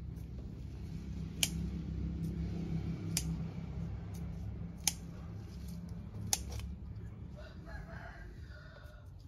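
A rooster crowing once near the end, over a steady low hum, with sharp single clicks at regular intervals of about a second and a half.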